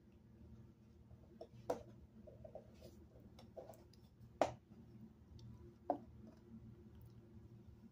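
Small plastic toy balls being handled and set down on a wooden tabletop: a few sharp knocks at irregular intervals, the loudest about halfway through.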